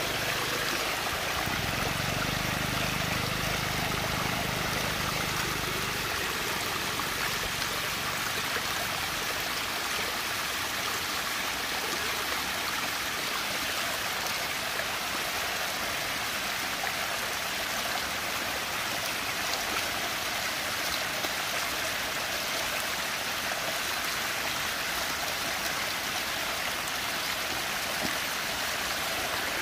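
Water swirling steadily in a whirlpool vortex, a continuous rushing noise, with a low hum underneath that stops about six seconds in.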